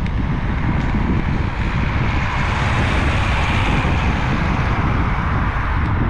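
Wind rushing over the action camera's microphone on a moving road bike: a loud, steady rush with uneven low buffeting, the hiss swelling slightly in the middle.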